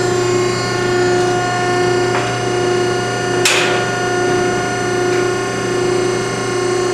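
Selco V5R vertical baler's 10-hp three-phase electric motor and hydraulic pump running under the platen's downstroke, a steady hum with a whine. One sharp knock about halfway through, with two fainter knocks before and after it.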